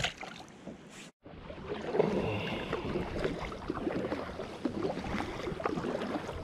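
Kayak paddling: the double-bladed paddle dipping and splashing in repeated strokes, with water washing along the plastic hull. Before that, about a second in, the sound cuts off briefly.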